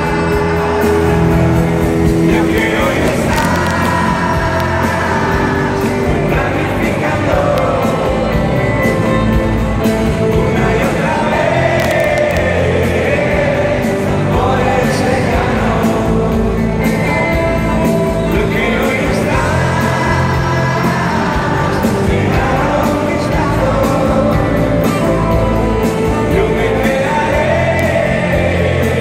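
A live rock band playing a song: a male lead singer, who also plays bass, sings over electric bass, electric guitar and a drum kit, amplified loudly through a concert PA.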